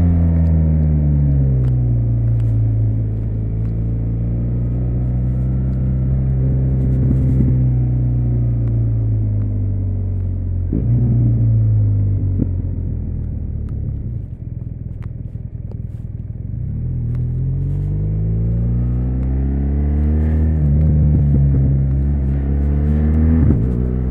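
BMW R1200RS boxer-twin engine heard from on board while riding. Its pitch falls as the bike slows, holds steady, then drops to a low, quieter run for a few seconds before rising again under acceleration, with another quick rise near the end.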